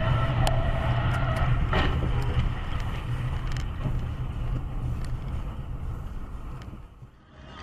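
Steady road and engine rumble inside a moving car's cabin, with a short steady tone lasting about a second near the start and a few sharp clicks; the sound fades down near the end.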